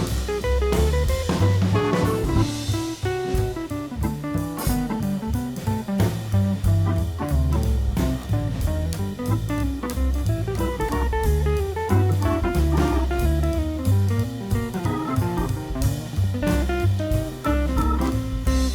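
Instrumental background music with a steady drum beat and a moving bass line.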